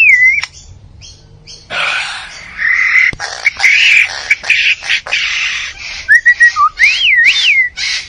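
A bird calling in a varied sequence: a whistled note sliding up and down at the start, then a long stretch of harsh rasping sounds with a few sharp clicks, then more rising and falling whistles near the end.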